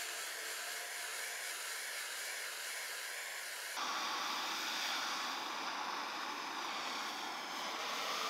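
Propane torch flame hissing steadily as it heats a raw steel two-stroke exhaust pipe to bring out heat-tint colours; the hiss gets louder and fuller about four seconds in.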